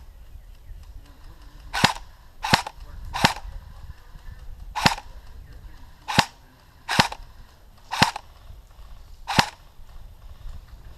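Airsoft rifle firing eight single shots at an uneven pace, each a sharp snap.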